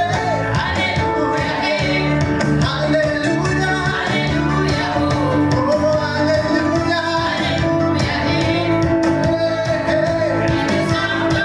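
Gospel song performed by church singers with a band: singing over a steady bass line and guitar.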